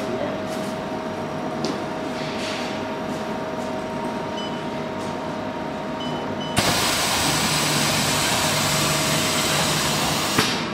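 Automatic side-sealer shrink packing machine running with a steady hum and a thin high tone. About six and a half seconds in, a click is followed by a sudden loud rushing hiss that carries on to the end, as the machine is set going from its control panel.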